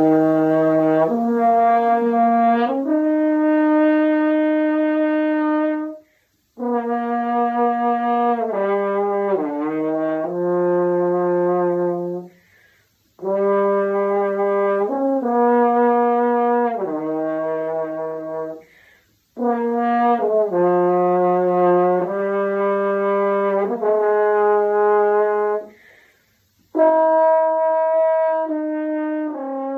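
French horn playing a slow melody of held notes stepping up and down, in phrases of about six seconds separated by short pauses.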